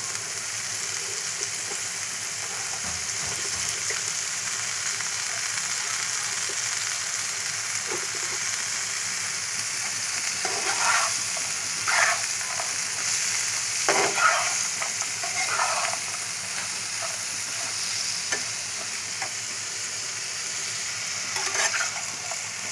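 Chopped pointed gourd frying in a pan with a steady sizzle, with a spatula stirring and scraping the pan in several strokes from about ten to sixteen seconds in, and again near the end.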